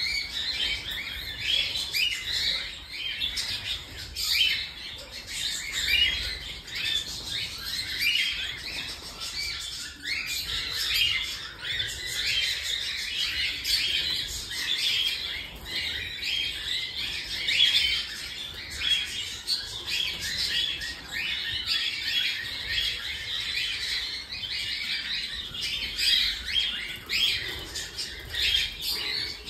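Cockatiels chirping continuously, many short calls overlapping with no break.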